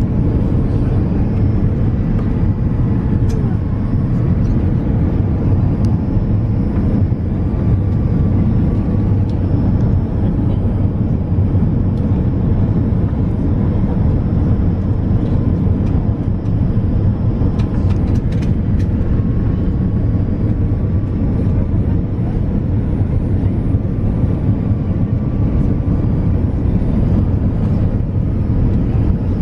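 Steady low drone of a jet airliner's engines and airflow, heard from inside the passenger cabin.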